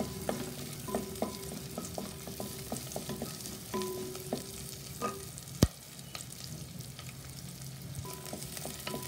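Onions, garlic and green chillies sizzling in hot oil in a nonstick pan, with a wooden spatula stirring them and scraping and tapping against the pan in many short clicks. One sharp knock, the loudest sound, comes a little past halfway.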